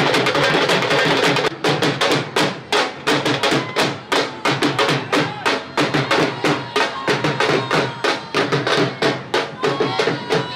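Procession drums playing a fast, even beat of sharp strikes, several a second, over crowd voices. The sound is dense for the first second and a half, then the strikes stand out clearly one by one.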